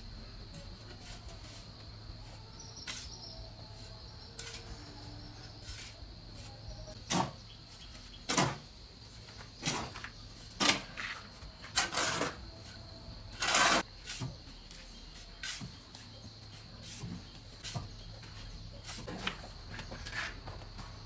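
Steel shovel scraping and scooping into a pile of sand and cement on a concrete floor, in irregular single strokes, the loudest ones coming about seven to fourteen seconds in.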